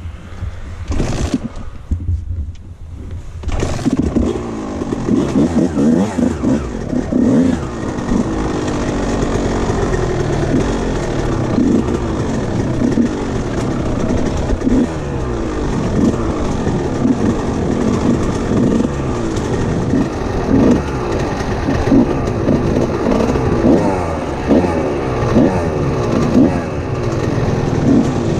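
Dirt bike engine revving up and down under throttle as the bike is ridden, its pitch rising and falling over and over. The first few seconds hold only knocks and a low rumble; the engine comes in much louder about three and a half seconds in.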